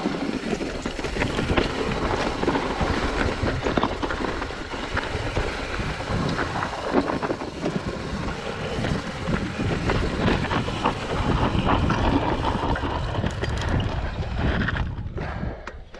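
Mountain bike riding over a dry, rocky dirt trail: tyres crunching on gravel and the bike rattling and clattering over bumps, with wind rushing over the microphone. The noise drops briefly near the end.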